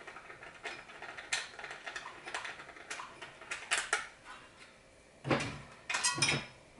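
Small metallic clicks, ticks and scrapes of a portable generator's air box and carburetor fittings being handled while the screw behind the carburetor is taken out, with a cluster of louder knocks and rattles about five seconds in.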